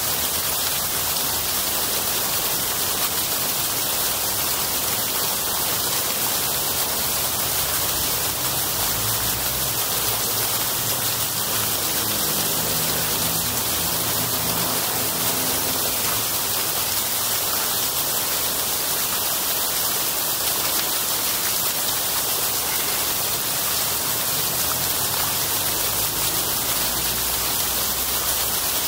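Fountain jets splashing into their basins close by, a steady rush of falling water. Traffic rumbles low underneath around the middle and again near the end.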